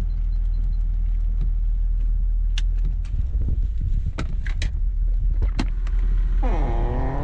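Toyota 80 series LandCruiser running with a steady low rumble, with several sharp knocks and clunks in the middle and a falling whine near the end.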